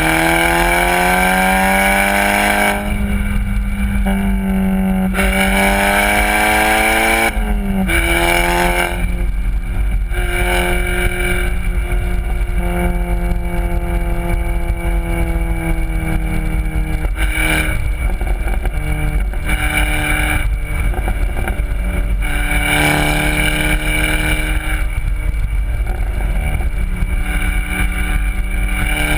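Volkswagen Golf R's turbocharged four-cylinder running through a Borla exhaust under hard driving: the revs climb twice, each climb ending in a sudden drop in pitch about three and seven seconds in, then hold fairly steady and slowly fall. Road and wind noise run underneath.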